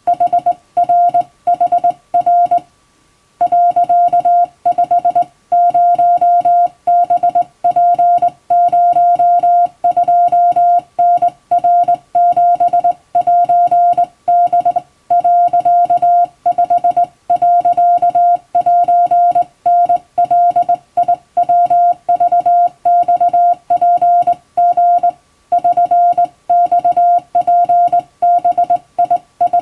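Japanese Wabun Morse code sent by hand on a telegraph key: a single-pitched beep switched on and off in irregular dots and dashes, with one short break about three seconds in.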